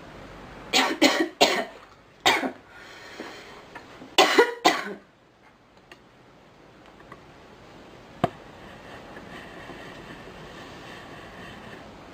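A girl coughing: a quick run of three coughs, a single cough, then another run of three within the first five seconds. A single sharp click comes about eight seconds in.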